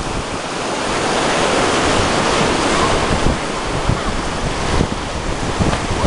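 Gulf of Mexico surf washing and foaming against the rocks of a jetty, swelling a little over the first second, with wind buffeting the microphone.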